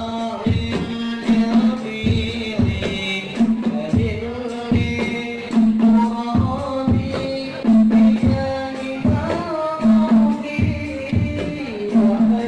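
A group of rebana frame drums beating a steady rhythm, with deep drum strokes under the lighter hand beats, while voices sing a melody over them.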